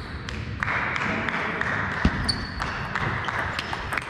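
Table tennis balls clicking sharply off bats and tables at irregular intervals in a sports hall, over a steady hiss that starts about half a second in.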